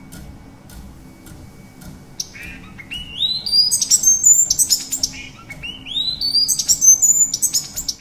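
Female blue-capped cordon-bleu singing her courtship song: two loud phrases of high, rising whistled notes and sharp chips, the first starting about two seconds in and the second about halfway through, after a few faint clicks.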